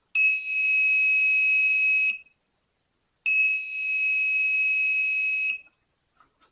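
A 5-volt buzzer in an ESP32 doorbell circuit, switched by an NPN transistor, sounding a steady high-pitched tone twice, about two seconds each time. Each tone starts when the push button is pressed and stops when it is released.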